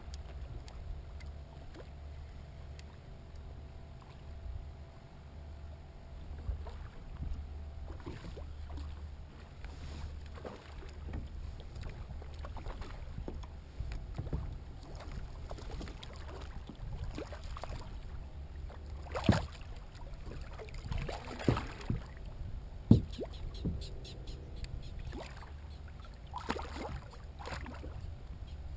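A fishing kayak on calm water, with a steady low rumble from water against the hull, while the paddler fights a hooked fish. A few sharp knocks come about two-thirds of the way through.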